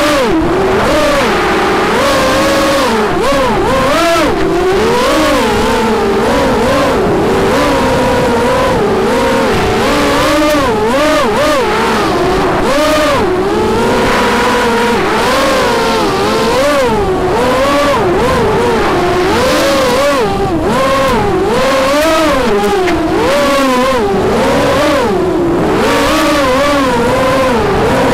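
Armattan F1-4B racing quadcopter's four Cobra 2204 2300KV brushless motors whining, the pitch swooping up and down constantly with rapid throttle changes in flight.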